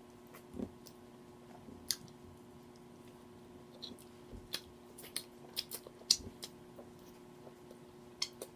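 A person chewing crispy fried food close to the microphone, with sharp crunches and mouth clicks coming irregularly, over a faint steady hum.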